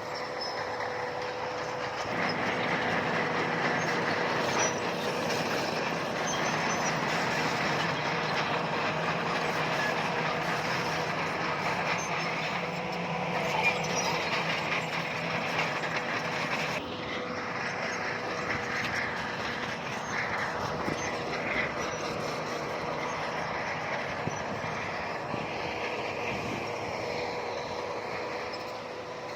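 Crawler bulldozer at work: its diesel engine running under load with the steel tracks clanking. It is louder from about two seconds in and eases off about two-thirds of the way through.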